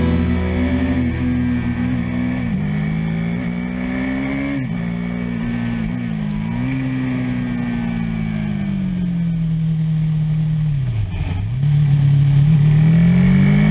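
A KTM Duke 390's single-cylinder engine, breathing through an Arrow Pro Race exhaust with the catalytic converter removed, is ridden hard through bends. Its pitch rises and falls with the throttle, broken by several quick dips. It drops sharply about eleven seconds in, then climbs again, louder.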